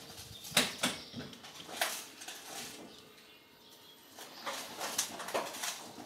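Opel Rocks-e electric microcar edging onto metal loading ramps: scattered knocks and clicks, a few in the first two seconds and another cluster near the end, with a quieter stretch between.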